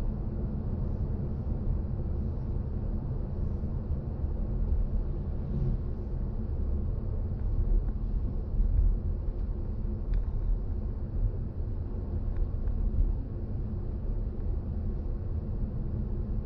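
Steady low road rumble of a BMW i4 M50 electric car driving along, mostly tyre and road noise, swelling a little now and then.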